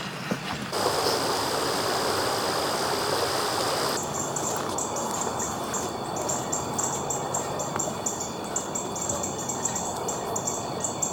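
Outdoor ambience of birds chirping over a steady rushing background noise. From about four seconds in, rapid high-pitched chirps repeat several times a second.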